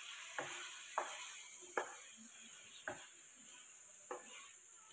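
Spatula stirring thick paneer masala gravy in a nonstick kadai, with about five light knocks of the spatula against the pan, roughly a second apart.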